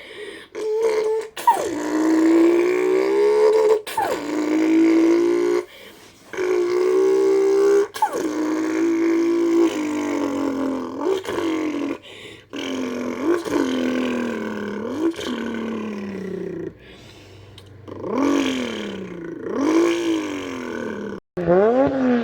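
A boy imitating a Nissan R32 Skyline GT-R's engine with his mouth: voiced revs that climb in pitch and drop back as if through gear changes, broken by short pauses. Quick up-and-down rev blips come near the end.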